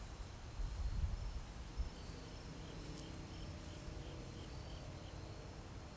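Motor oil being poured from a plastic oil jug through a funnel into the engine's oil filler, faint, over a low rumble, with a high chirping repeating about three times a second in the second half.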